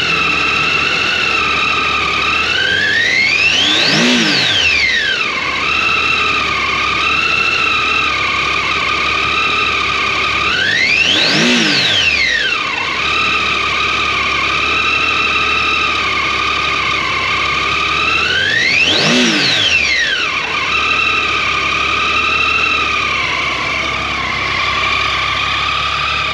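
2016 Triumph Tiger 800 XCA's three-cylinder engine idling in neutral, revved three times with the throttle. Each rev rises and falls in pitch over about two seconds, and a high-pitched whine rides over the idle and follows the revs.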